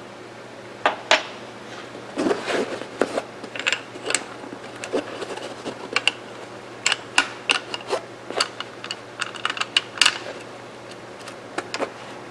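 Irregular metal clicks and knocks of a Mossberg 464 lever-action rifle's parts and tools being handled on a bench during disassembly and inspection.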